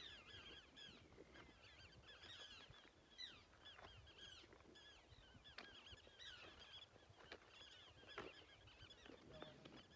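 Many birds calling at once, a faint, continuous chorus of short overlapping chirps.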